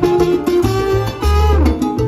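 Salsa band playing live, with trombone and trumpets over upright bass and congas; the horn line slides down near the end.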